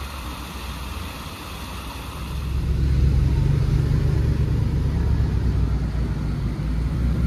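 Fountain water splashing. About two and a half seconds in, it gives way to a Ferrari 812's V12 engine running at low speed as the car drives slowly past, a deep, steady engine note.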